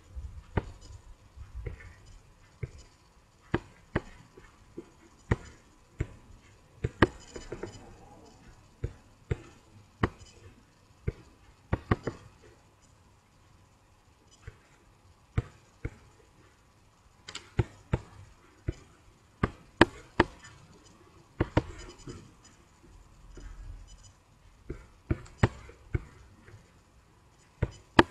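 Computer mouse clicks and keyboard keystrokes: scattered single sharp clicks about a second apart, with short runs of quicker ones.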